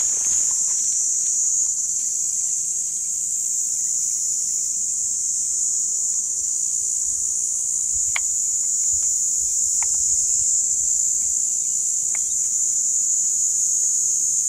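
Steady high-pitched drone of an insect chorus in dry scrub, with three faint clicks in the second half.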